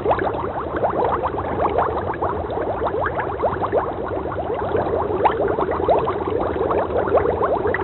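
Water bubbling and gurgling in a refrigerator: a steady, dense run of quick little bubble blips.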